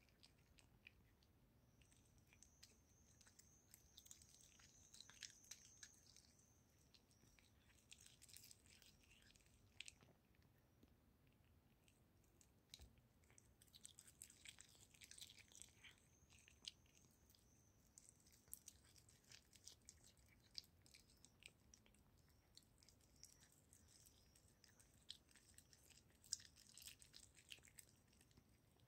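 A tabby cat chewing and licking a soft pink sausage up close: faint, irregular small clicks and smacks of its mouth and tongue.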